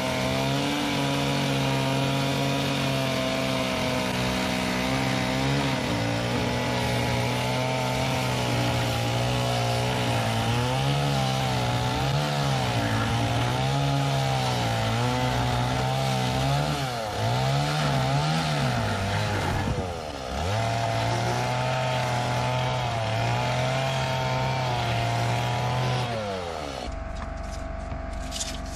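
Stihl two-stroke chainsaw at full throttle cutting through a large wooden beam. The engine pitch dips and recovers several times as the chain bogs down under load. Near the end, as the cut finishes, the revs drop to a lower, quieter steady running.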